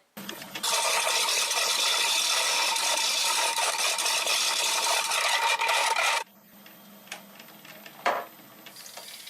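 A turning tool cutting a spinning oak saucer on a wood lathe: loud, steady scraping for about five and a half seconds. The tool then comes off and the lathe runs on quietly, with one short scrape about eight seconds in.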